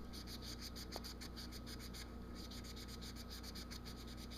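Steel wool scrubbing the metal rod of a gas furnace's flame sensor: a fast back-and-forth scratching of several strokes a second, pausing briefly about two seconds in. The rod is being rubbed smooth and shiny to clear the dirt that stops it sensing the flame, which makes the furnace shut its gas off.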